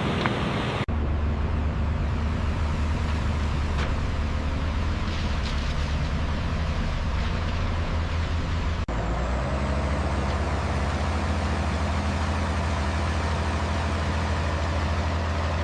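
Steady low vehicle engine rumble, like a truck running, that breaks off abruptly and resumes about one second in and again about nine seconds in.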